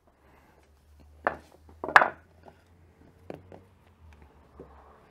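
Blocks of wood knocking together and being set down on a concrete floor as they are wedged under a Vespa's engine to prop the scooter up: a few sharp knocks, the loudest about two seconds in, with lighter taps between.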